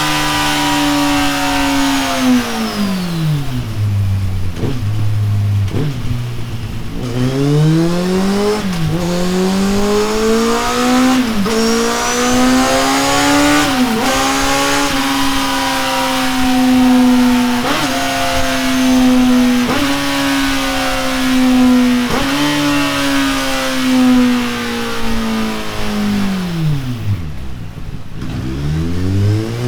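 Kawasaki Z800 inline-four running through a Delkevic oval 18-inch stainless steel muffler on a dyno. The revs fall away in the first few seconds, then climb in stages with brief dips, hold fairly steady through the middle with several short dips, then drop sharply near the end before picking up again.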